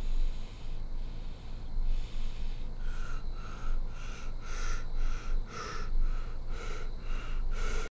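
Quick, heavy breathing, about three breaths a second, starting about three seconds in over a low steady rumble. It cuts off suddenly at the end.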